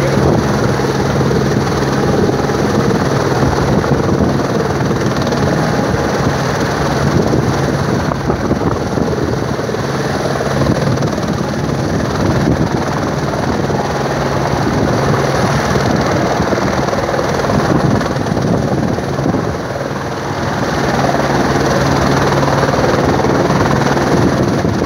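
Police helicopter hovering low and descending to land, its rotor noise loud and steady, dipping briefly about twenty seconds in.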